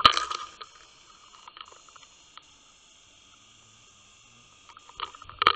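Muffled sound from inside an underwater camera housing as it is pulled through the water: a faint steady hiss. A loud rush of water noise and knocking dies away within the first half-second, and a few sharp knocks come about five seconds in.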